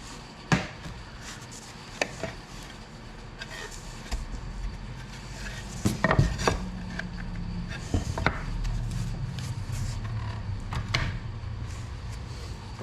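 Wooden bee hive boxes and parts knocking and clattering as they are handled and unpacked, with scattered sharp knocks, the loudest about six seconds in. A steady low hum runs underneath from about four seconds in.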